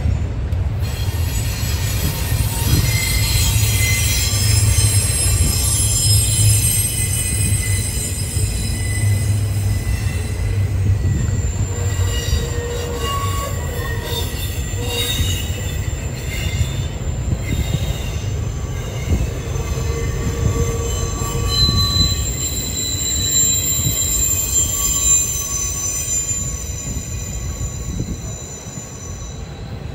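Double-stack intermodal well cars rolling past: a steady low rumble of steel wheels on rail, with several high-pitched wheel squeals coming and going over it. It eases off slightly near the end.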